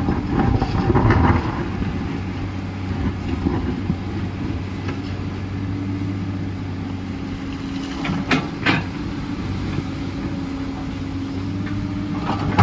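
Excavator's diesel engine running steadily, with two sharp metallic clanks close together about eight seconds in.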